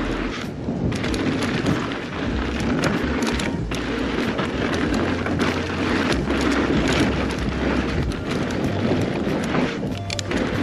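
Mountain bike riding fast down a rough dirt trail: knobby tyres rolling over dirt and rocks, with the bike rattling and knocking over bumps and wind rushing over the microphone.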